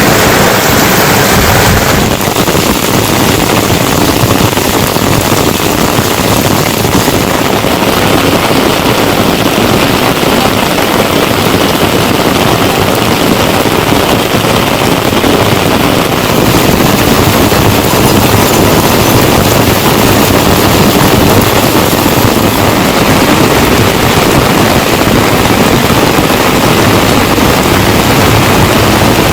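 Heavy monsoon rain falling steadily, a loud, even hiss.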